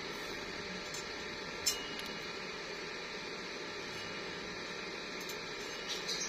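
Steady hiss, with a single sharp click a little under two seconds in and a few light ticks near the end.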